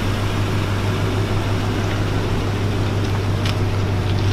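Toyota Tundra pickup rolling slowly at low speed, its engine running with a steady low hum over the sound of its tyres on asphalt. A few faint ticks come about three and a half seconds in.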